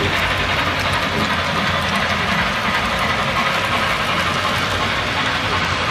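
Model railroad freight cars rolling past on the track: a steady rolling rumble with faint, scattered wheel clicks.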